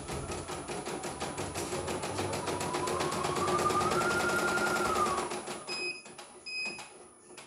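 CNY E900 computerised embroidery machine stitching, with rapid even ticking from the needle and a motor whine that rises in pitch midway. The stitching stops a little over five seconds in, followed by two short electronic beeps from the machine.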